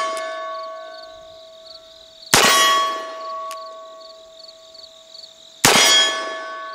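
Two shots from a Colt Richards cartridge-conversion revolver firing black-powder .44 Colt rounds, about three seconds apart. Each shot is followed by a long metallic ringing at a steady pitch that slowly dies away, and the ring of a shot fired just before is still fading at the start. Crickets chirp faintly in the background.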